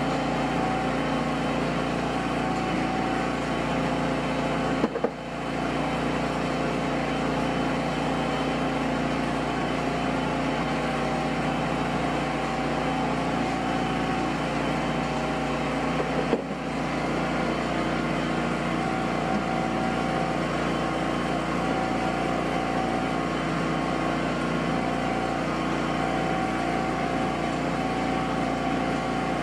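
Steady mechanical drone of a machine running, with a few constant tones in it, cutting out for a split second twice.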